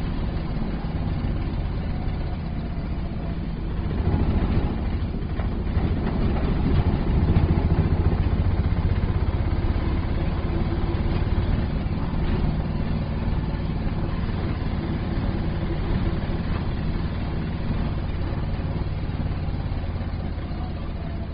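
Auto rickshaw engine running steadily with a low throb, growing somewhat louder a few seconds in and easing off gradually toward the end.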